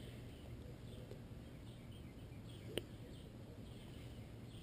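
Quiet workshop room tone with a faint steady low hum. Nearly three seconds in comes one light, sharp click as a small metal valve part is set down.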